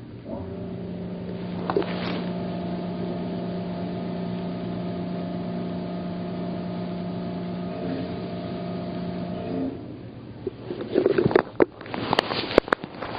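Yamaha F225 four-stroke outboard running steadily, then shutting off about ten seconds in. A burst of sharp knocks and clatter follows.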